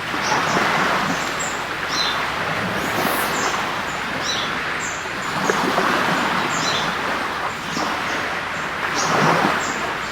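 Sea waves washing onto a beach in a steady rush that swells every few seconds, with small birds chirping in short, high notes throughout.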